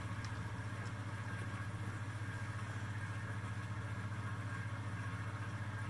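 Aquarium equipment, such as the return pump, running with a steady low hum.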